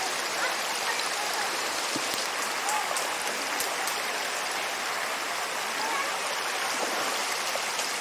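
Steady rush of water from a shallow stream flowing over a rock ledge at the top of a waterfall, with a few small splashes and gurgles in the middle.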